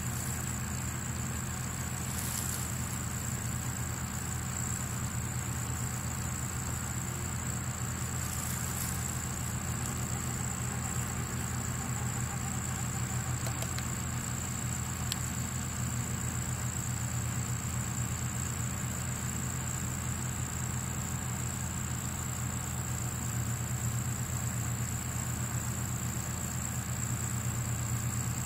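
A steady low rumble with a constant thin, high-pitched whine above it, both unchanging throughout. No siren wail is sounding.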